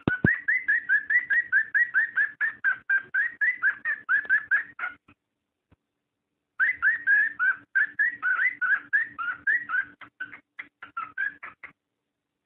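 Cockatiel mating call: fast runs of short, bendy whistled chirps, about five a second, breaking off for about a second and a half midway and stopping again near the end.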